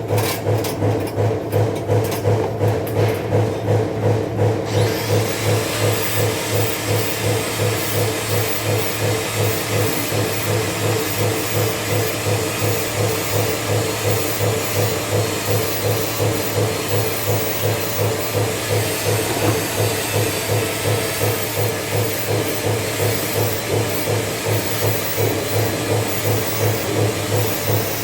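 A workshop machine running with a steady low hum and a rhythmic pulse about twice a second; a steady hiss joins about five seconds in.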